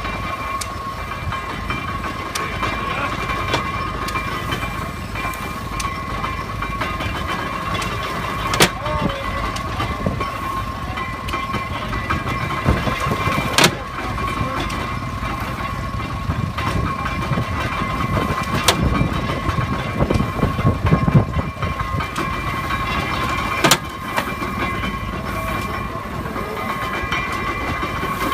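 A 1920s hay baler at work: steady machinery running with a constant whine and low rumble, and a sharp knock about every five seconds.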